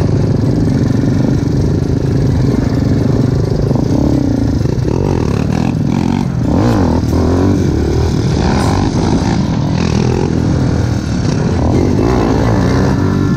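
Yamaha Raptor 250 quad's single-cylinder four-stroke engine running under load while riding, heard from on board; the engine pitch rises and falls several times in the middle as the throttle is worked.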